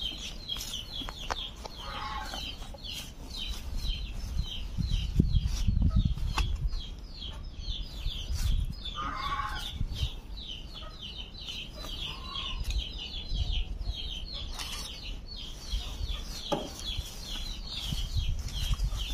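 Chickens calling: a steady run of short high chirps, several a second, with a few louder clucks. Low rumbles come and go underneath, loudest about five seconds in.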